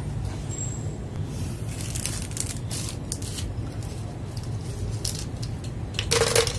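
Scattered small clicks and rustling from mechanical keyboard parts being handled and fitted, over a steady low hum, with a louder brief rustle near the end.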